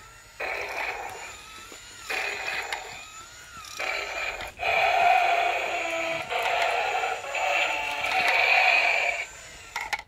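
Battery-powered remote-control toy T. rex playing electronic sound effects from its small built-in speaker, in a series of bursts of about a second each, the longest running several seconds in the second half before cutting off near the end.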